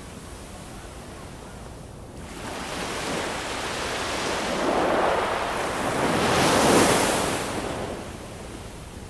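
Ocean surf: a steady wash of waves that swells about two seconds in, surges twice, then falls back near the end.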